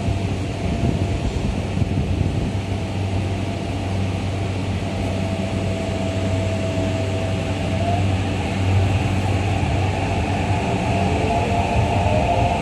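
Running noise inside an Eidan 8000-series subway car: a steady low hum and rumble, with the electric traction motors' whine held on one note through the middle, then several tones rising in pitch near the end as the train picks up speed.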